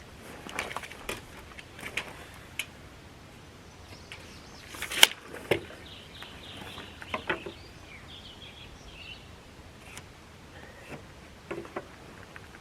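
Scattered knocks and clacks of lumber and tools being handled, with one sharp, loud clack about five seconds in.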